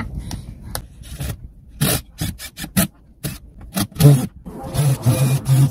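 A run of short scraping and rubbing strokes as a sheet-metal panel is pressed and shifted against a van's bodywork.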